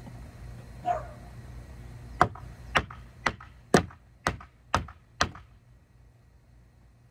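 Seven sharp knocks on the wooden boards of an old swingset fort, evenly spaced at about two a second and ending about five seconds in.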